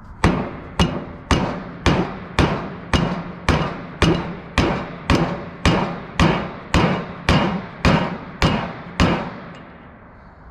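A 47-ounce dead blow hammer is smacked hard about seventeen times at a steady pace of roughly two blows a second, each hit ringing briefly. The blows land on a chainsaw crankshaft to drive off main bearings that are tightly pressed on.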